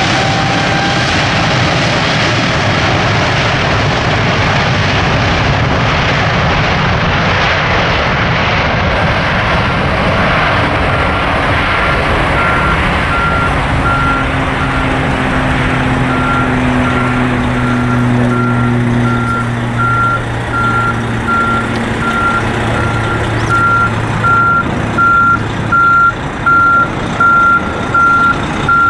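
Boeing 777-300ER's twin GE90-115B turbofans at takeoff power: a steady jet roar as the airliner rolls and climbs away. From about ten seconds in, a reversing alarm beeps about once a second over it, and near the end the beeps are the loudest sound.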